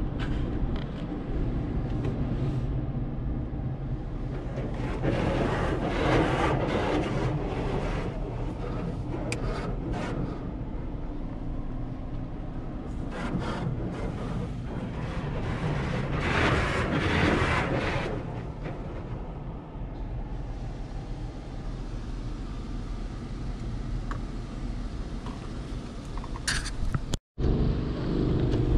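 Automatic car wash heard from inside the car: a steady low rumble of the wash machinery, with the spinning side brushes and water spray scrubbing against the body and glass, swelling louder twice as they pass.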